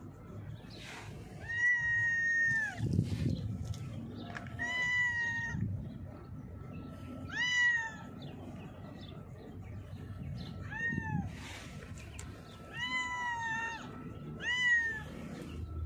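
A calico cat meowing repeatedly: about six meows spaced a couple of seconds apart, each rising then falling in pitch.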